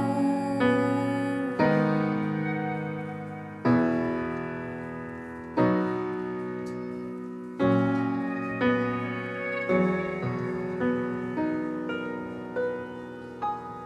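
Grand piano playing slow, sustained chords, one struck about every two seconds and left to ring out. In the second half it moves to quicker single notes, growing softer towards the end.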